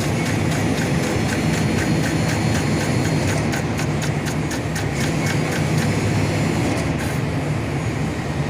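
Isuzu concrete pump truck's diesel engine running steadily, with a fast regular ticking over it, about four a second, that stops about seven seconds in.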